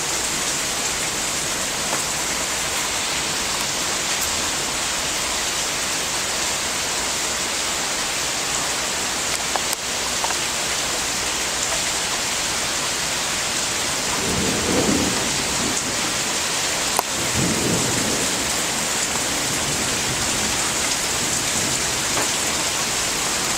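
Heavy rain pouring steadily in a thunderstorm. About two-thirds of the way through, thunder rumbles twice in short succession.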